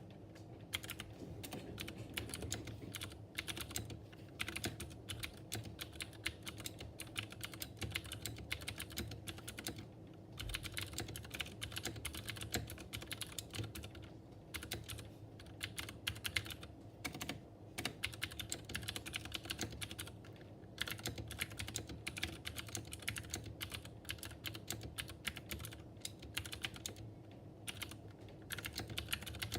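Mechanical keyboard with Cherry MX Blue switches and PBT keycaps being typed on quickly and continuously: rapid sharp clicks from the switches, with brief pauses now and then.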